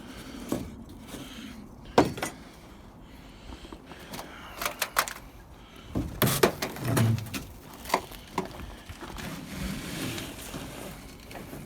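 Irregular knocks, clicks and scuffs of movement and handling, the sharpest about two seconds in and a cluster of knocks with a low thud around six to seven seconds in.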